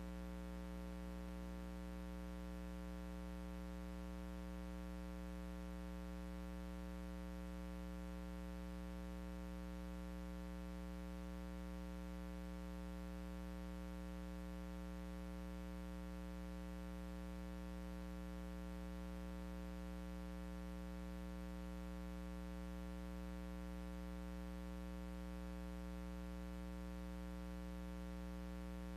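Steady electrical mains hum with a buzzy stack of overtones, over faint hiss.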